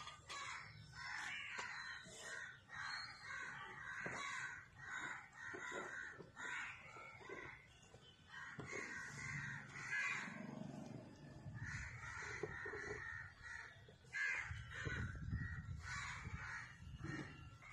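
Crows cawing over and over, in runs of harsh calls with short breaks between.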